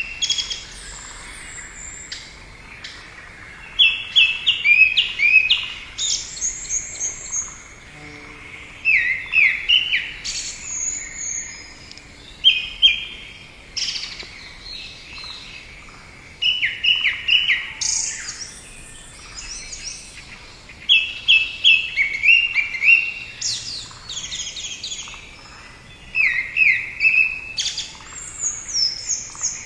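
Small birds chirping, in quick runs of four to six short high notes repeated every few seconds over a light background hiss.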